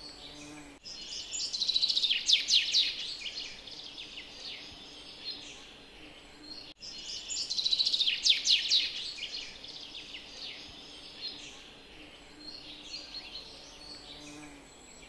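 Songbirds chirping, with a loud rapid trilling song about two seconds in and again about eight seconds in, and softer chirps between. A faint steady hum lies underneath.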